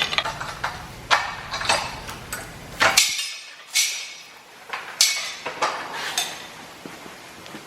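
Metal tools and parts clinking and clanking as they are handled: a string of sharp, separate knocks, roughly one every half second to a second.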